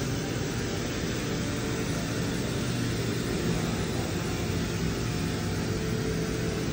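Steady hiss of a pressurized carpet pre-spray sprayer misting solution onto carpet, over a continuous low machine hum.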